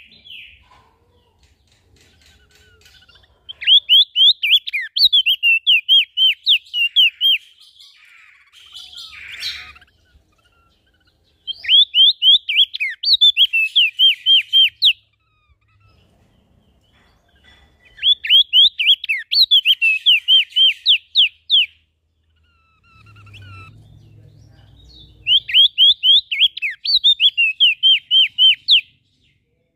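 A small songbird singing in four bouts of about three and a half seconds each, with a few seconds' pause between. Each bout is a fast, loud run of sharp downward-sweeping chirps.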